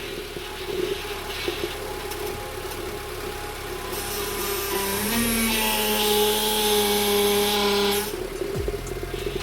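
A Dacia's engine idling while its hydraulic power steering pump whines under load for about four seconds in the middle, as the steering is turned. The whine rises in pitch, holds steady with a hiss over it, and cuts off suddenly. The steering fluid is still low and needs topping up with ATF.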